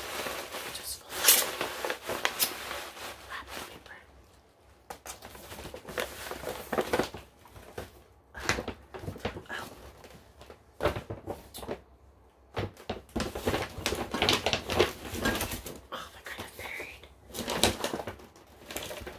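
Close-miked handling and tapping of gift items: bursts of clicking and rustling, with short pauses between.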